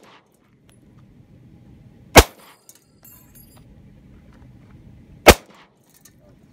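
Two single gunshots, about three seconds apart, each with a short echo trailing off.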